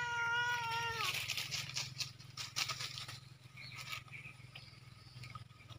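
A single drawn-out animal call, held on one pitch for just over a second and dropping slightly as it ends, then scattered rustling and crackling of dry fallen leaves as puppies push about and feed in them.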